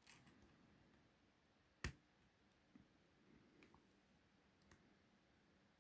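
Near silence broken by one sharp metallic click about two seconds in and a few faint ticks after it, from lock-picking tools being handled and set in a euro cylinder lock.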